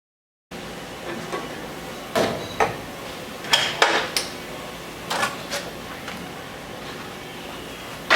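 Belt grinder running steadily, broken by a series of short, sharp clicks and knocks, about eight in the middle stretch and a louder one at the very end.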